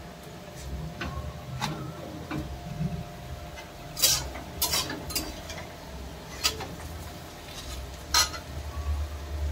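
A metal utensil stirring in a cooking pan and clinking against it: scattered sharp clinks, the loudest about four seconds in and again near eight seconds, over a steady low hum.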